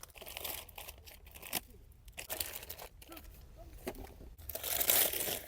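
Food packaging crinkling and rustling as it is handled, with irregular crackles and a louder stretch of rustling near the end.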